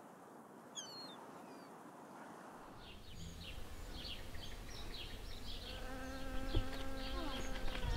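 A bee buzzing in a steady drone that comes in about six seconds in, over scattered high chirps and a low wind rumble on the microphone that builds from about three seconds in.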